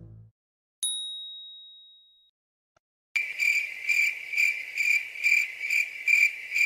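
A single bright bell ding that rings out and fades over about a second. About three seconds in, crickets chirping steadily, a little over two chirps a second, as in the comedy crickets sound effect.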